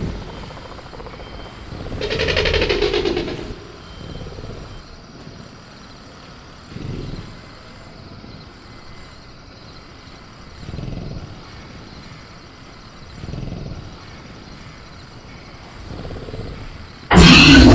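Sound-effect velociraptor in a cage: one loud growling call a couple of seconds in, then softer short breaths or grunts every few seconds, and a loud sudden burst near the end, over faint steady crickets.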